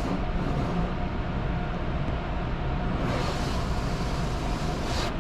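Automatic car wash spraying pre-wash onto the car, heard from inside the cabin: a steady rushing hiss over a low rumble, growing brighter about three seconds in.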